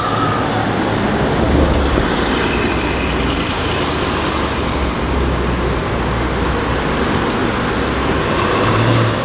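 Car engines and road traffic, loud and steady, over a low engine rumble, with no distinct revving.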